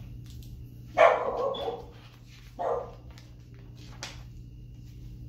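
A dog barking twice: a longer bark about a second in and a short one shortly before three seconds.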